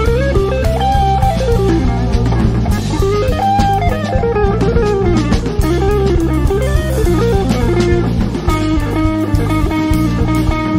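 Electric guitar playing a flowing, winding melodic line over bass and drums in a small instrumental group.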